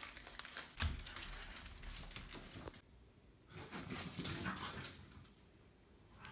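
A French bulldog playing with a toy: scuffling, rustling and clicking noises mixed with the dog's own noises. They come in two stretches, one starting about a second in and one about three and a half seconds in, with a short lull between.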